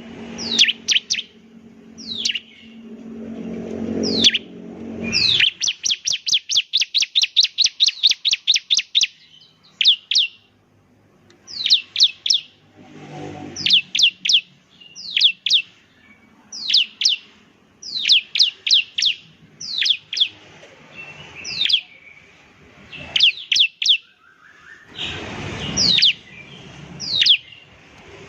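Bar-winged prinia (ciblek) singing: sharp, high notes that sweep downward, repeated mostly in twos and threes, with a fast rattling trill of about seven notes a second from about five to nine seconds in.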